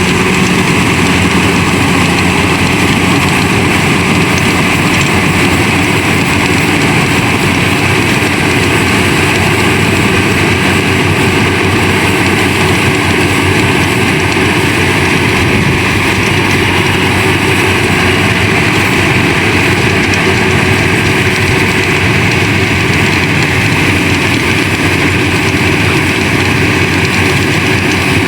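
Yanmar AW70 VW combine harvester running steadily, its engine and machinery making a loud, even mechanical drone with a strong hiss.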